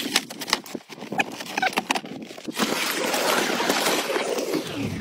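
Ice blocks being pushed onto a wooden sled: a quick run of sharp clacks and knocks with short squeaks. About two and a half seconds in, this gives way to a steady crunching hiss of movement over dry snow.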